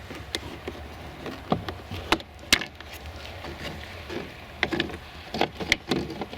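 Irregular sharp clicks and snaps of a plastic door trim piece being pried loose from its clips on a GM truck's door.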